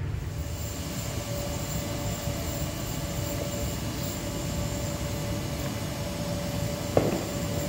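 Distant diesel locomotive of an arriving express train: a steady rumble with a thin steady whine over it, and one sharp knock about seven seconds in.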